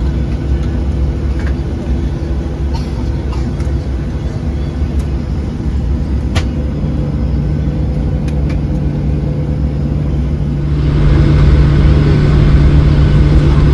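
Engine and air-conditioning noise inside a Boeing 737-800's passenger cabin: a steady low hum that grows louder and hissier about eleven seconds in. There is a single sharp click about six seconds in.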